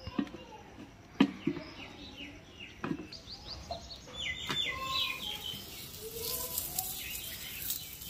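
Hands slapping and patting paratha dough flat on a metal plate: a few sharp pats in the first three seconds, with small birds chirping repeatedly nearby. A faint crackling hiss comes in during the second half.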